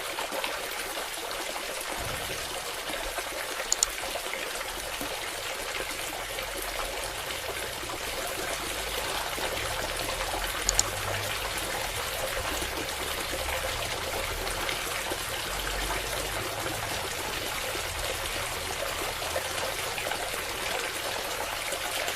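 Water pouring and trickling steadily from a mini submersible water pump's outlet, with two brief clicks, one about four seconds in and one about eleven seconds in.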